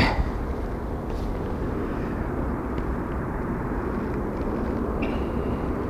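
Steady low drone of background engine-like noise, with a few faint clicks and rustles as a small bream is handled and unhooked.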